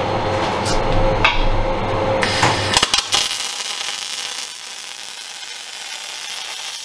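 A low steady hum, then about two and a half seconds in a MIG welding arc strikes with a few crackles and settles into a steady hiss. This is a high-amperage inside corner weld on steel plate, which gives the weld its hissing sound.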